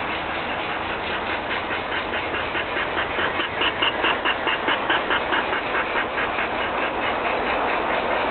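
G scale model train running, with a fast rhythmic pulsing of about five beats a second, loudest around the middle.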